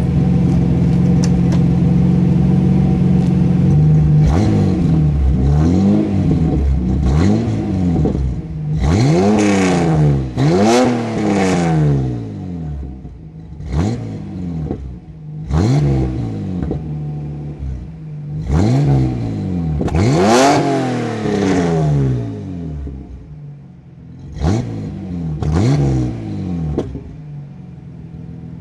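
Fuel-injected GM 3.1-litre V6 in a 1973 MGB GT, heard at the tailpipe, idling steadily and then revved in a dozen or so quick blips. Each rev rises in pitch and falls straight back to idle.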